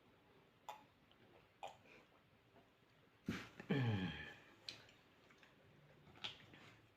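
Quiet eating sounds: a few sharp mouth or utensil clicks, and a short hummed vocal sound falling in pitch a little over three seconds in.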